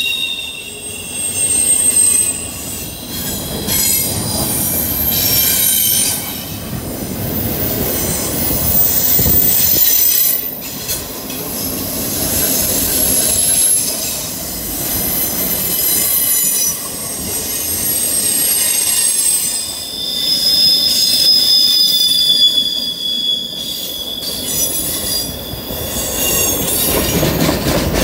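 Long CSX freight train of double-stack container cars and auto racks rolling across a curved trestle. Its wheels squeal in several high, shifting tones over a steady rumble and clatter of the cars.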